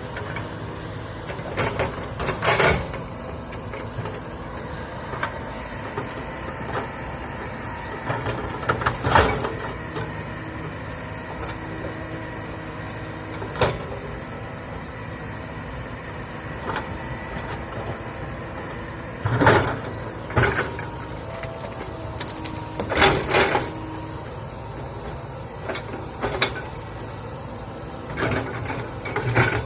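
Komatsu excavator engine running steadily, with a sharp knock or crack every few seconds, the loudest about two, nine, twenty and twenty-three seconds in.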